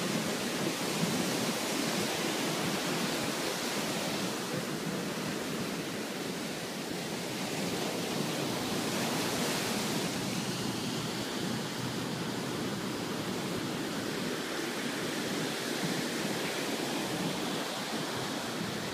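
Ocean surf breaking and washing up a sandy beach: a steady, even rush of noise with no let-up.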